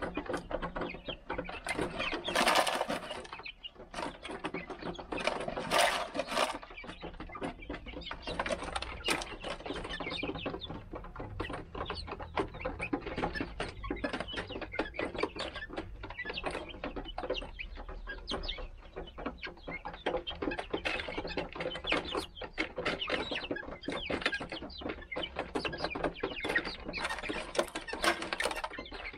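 Young 45-day-old Golden Laced Polish chickens clucking as they peck at gravel, over a steady patter of small clicks. There are two louder scratchy bursts about two and six seconds in.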